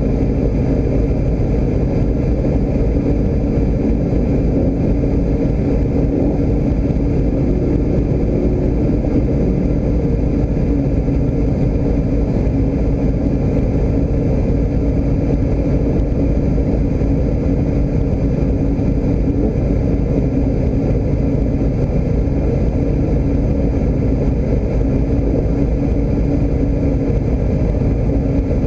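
A vehicle running at a steady speed: a constant deep rumble of engine and road noise with a steady hum, unchanging throughout.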